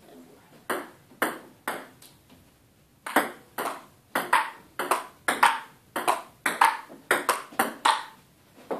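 Table tennis ball clicking off the table and paddles: three spaced clicks, then from about three seconds in a steady run of sharp clicks, two to three a second, as in a rally.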